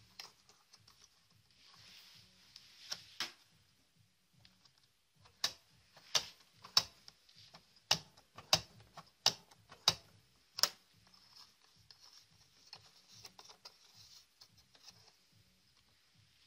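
Sharp mechanical clicks from working the controls of a Grundig Satellit 6000 receiver: a few scattered at first, then a run of about ten, roughly one every half second, in the middle of the stretch. A faint steady hiss lies underneath.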